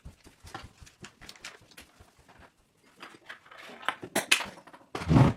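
Plastic Lego Technic pieces clicking and rattling as they are handled and fitted together, in a run of small quick taps that gets busier after about three seconds. A louder, heavier bump with a rattle comes near the end.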